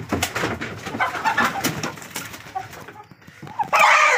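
Desi chickens flapping and scuffling as one is caught by hand, with some clucking; near the end the caught bird lets out a loud squawk.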